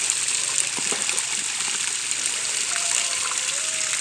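Water gushing from a hose and running along a shallow channel over the ground: a steady rushing hiss, with a few light knocks in the first second or two.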